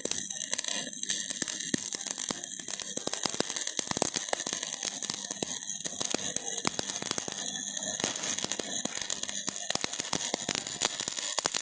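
Electric arc welding: the welding arc keeps up a steady crackling sizzle of rapid, irregular pops.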